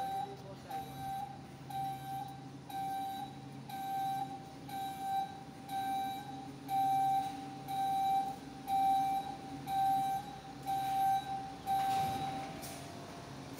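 Rear-loader garbage truck's reversing alarm beeping at a steady pace, about three beeps every two seconds, over the truck's engine running. The beeping stops near the end as the truck finishes backing up.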